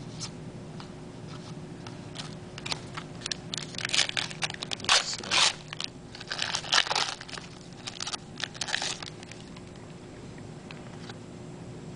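Foil wrapper of a 2009 Press Pass Legends football card pack crinkling and tearing as it is opened and the cards are handled. The rustling comes in irregular bursts, loudest in the middle, and dies down about nine seconds in.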